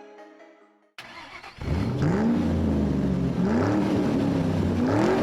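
A car engine being revved over and over, its pitch rising and falling about every second and a half, after a short stretch of fading music and a sharp click.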